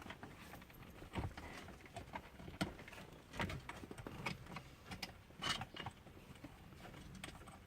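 Faint, scattered clicks and knocks of a child car seat base and its support leg being handled and adjusted.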